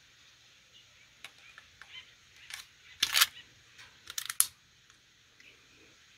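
Steel magazine being slid up into the grip of a stainless Ruger Mark III .22 pistol and seated: a few light metallic clicks, a louder click about three seconds in, then a quick cluster of clicks just past four seconds as it locks home.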